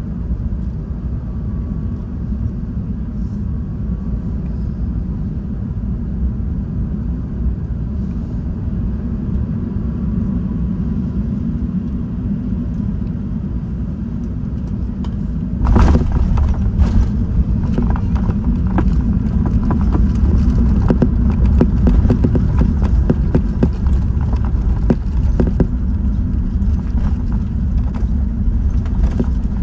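Steady low rumble inside the cabin of a British Airways Airbus A380 on its landing approach. About halfway through, it turns suddenly louder, with dense rattling and knocking as the wheels touch down and roll on the runway.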